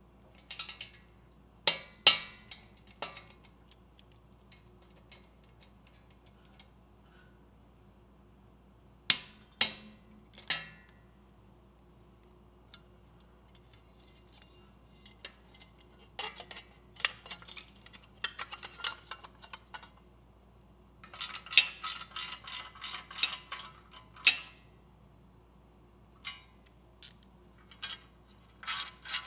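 Metal tools and parts clinking as nuts and bolts are fitted on a small Briggs & Stratton engine. There are sharp single clinks about 2 s and 9 s in, and a socket ratchet clicking in quick runs past the middle.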